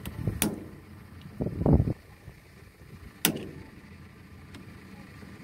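Hammer blows on the metal drive of a broken-down Kubota DC60 rice combine harvester's cutting header: sharp ringing strikes, one about half a second in and a louder one just after three seconds. A brief low dull sound comes between them.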